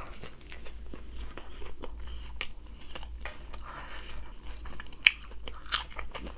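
A person eating close to the microphone: bites and chewing, an irregular run of small crunches and mouth clicks, with one sharper click about five seconds in.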